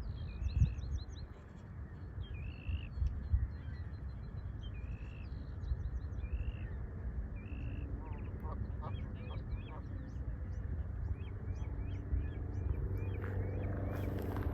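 Songbirds calling over steady wind rumble: a phrase of a sliding note and a quick run of high ticks repeats every second or two, then many short falling chirps crowd in about halfway through. A low engine hum builds in the last few seconds.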